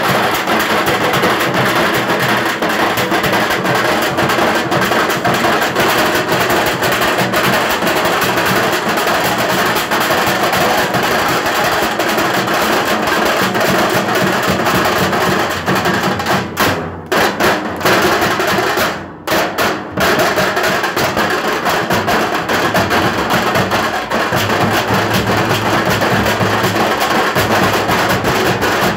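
A band of large metal-shelled drums beaten with sticks, playing a loud, dense, rapid rhythm. The sound drops out briefly twice about two-thirds of the way through.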